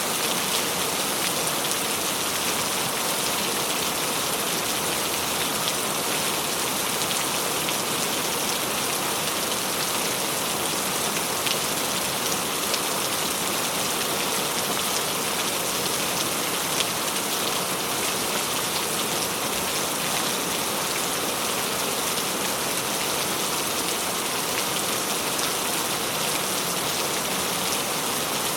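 Steady rain falling and pattering on a surface, an even hiss with many small drop ticks.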